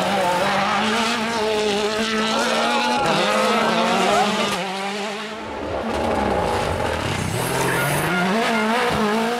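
World Rally cars on a tarmac stage, their engines revving hard and dropping in pitch through gear changes as they come through bends, with a short lull about five seconds in.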